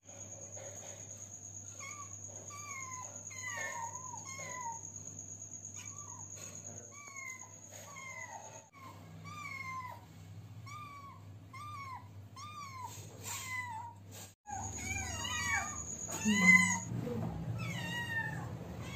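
Several kittens mewing over and over, short meows that rise and fall in pitch, about one a second, louder near the end: hungry kittens begging for food.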